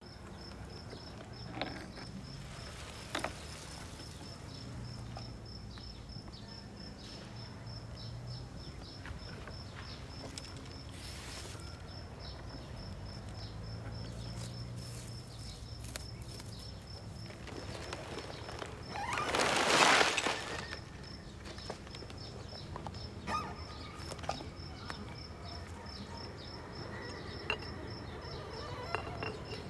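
Insect chirping steadily, a high pulse repeating about two to three times a second, over a faint low hum. About twenty seconds in, a loud rushing noise lasts about a second and a half, and a few faint clicks come and go.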